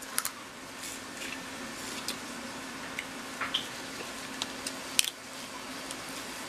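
Snow crab leg shell cracking and snapping as it is picked apart by hand, in scattered sharp clicks with squishy eating sounds; the loudest snap comes about five seconds in. A faint steady hum runs underneath.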